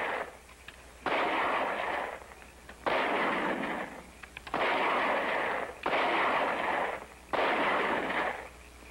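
A series of five loud, sudden bursts of noise, each lasting about a second, about one every second and a half, on an old film soundtrack.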